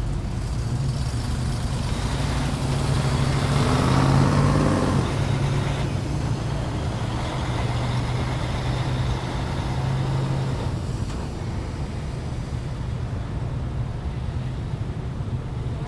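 Cars and a truck passing at low speed with their engines running, over a steady low engine hum. One passes close about four seconds in, its engine note dropping as it goes by.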